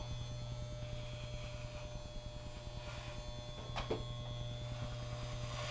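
Electric hair clippers buzzing steadily as they shave a head for a buzz cut.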